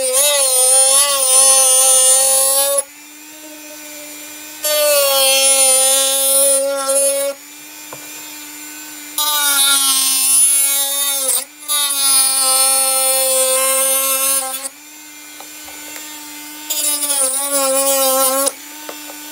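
Dremel rotary tool on a flexible shaft, its small cutting disc trimming thin black plastic: a loud high whine with a gritty cutting hiss, in about five passes of two to three seconds each. Between cuts the unloaded motor keeps running as a quieter, slightly higher whine.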